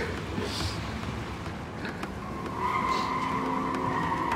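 A loud, steady, high squealing tone sets in about halfway through and holds, over a low rumble.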